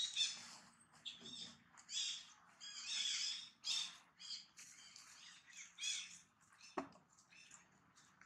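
A string of short, high-pitched animal calls, one or two a second, with a single sharp snap about two-thirds of the way through.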